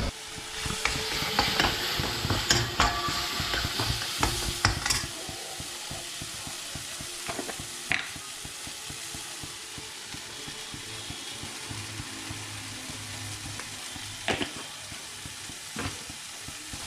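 Onion-tomato masala frying in butter and oil in a pan, sizzling steadily while a spoon stirs it, scraping and clinking against the pan for the first five seconds or so, then only now and then.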